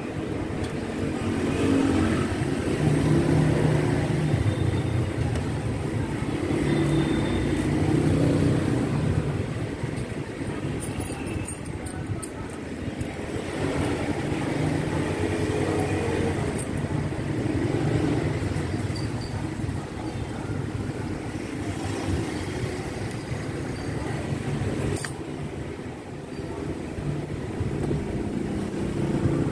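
Engines of passing road vehicles, swelling and fading every few seconds, with a few light clicks.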